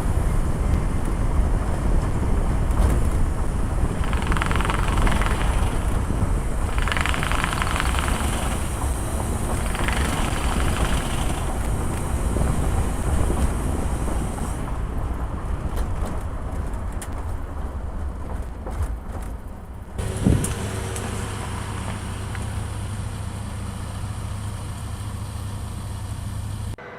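Ford F-150 Lightning electric pickup driving: a dense rumble of tyre and wind noise with no engine note. The sound changes abruptly a few times, and there is a sharp thump about 20 seconds in.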